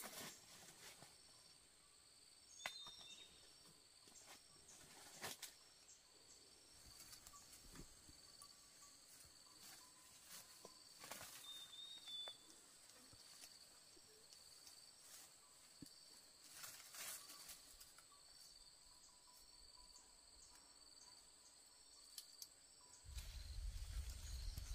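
Near silence: faint insects chirping steadily in high thin pulsing tones, with a few soft clicks now and then.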